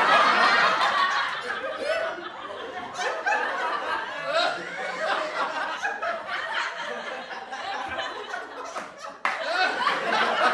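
People laughing and chuckling, several voices overlapping, loudest near the start, with an abrupt change a little after nine seconds in.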